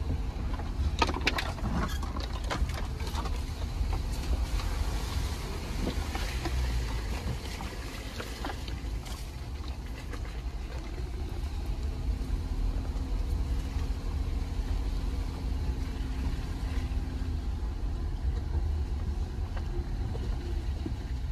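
Jeep Gladiator driving, a steady low rumble with a few knocks and rattles in the first few seconds.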